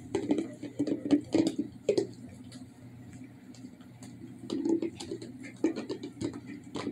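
German Shepherd licking and chewing at an empty plastic Jif peanut butter jar: wet licking with teeth clicking and scraping on the plastic in irregular spurts. It is busiest in the first two seconds, eases off, then picks up again about halfway through.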